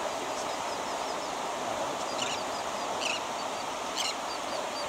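Seabirds calling over steady surf: a run of quick, faint high chirps, then a few short squawks about a second apart from the middle on.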